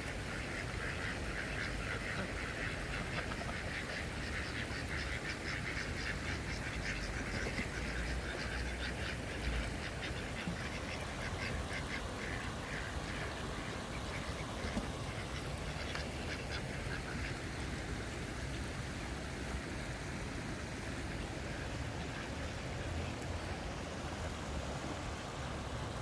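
Mallard ducks quacking in long runs of rapid calls through the first two-thirds, thinning out toward the end, over a steady background hiss.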